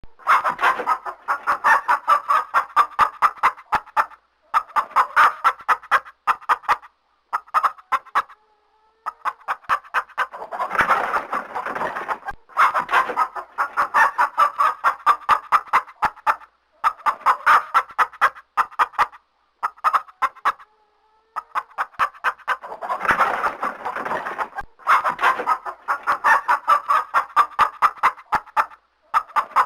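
Angry chicken clucking in rapid runs of several sharp clucks a second, each run lasting a few seconds with short pauses between. Twice a louder, harsher squawk rises out of the clucking.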